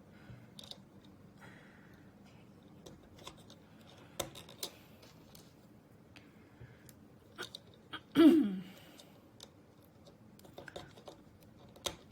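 Scattered small clicks and taps of Lego pieces and plastic kit parts being handled and fitted together. A brief vocal sound, falling in pitch, comes about eight seconds in and is the loudest thing.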